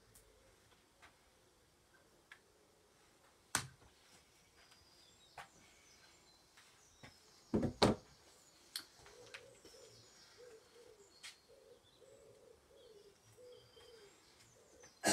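Faint outdoor birdsong with a low repeated call in the second half, broken by scattered clicks and a few sharp knocks from the phone or camera being handled close to the microphone, the loudest a pair of knocks about eight seconds in.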